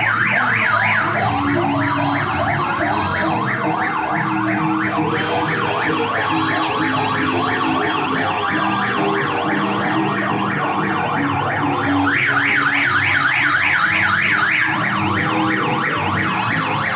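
Vehicle sirens on yelp, rapid rising and falling wails about five a second, several overlapping, loudest at the start and again about twelve seconds in.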